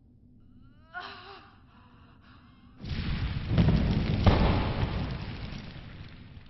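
A brief cry about a second in, then a heavy crash as two bodies slam into dirt ground: a loud impact that starts suddenly near the middle and fades slowly over a few seconds, a film fight sound effect.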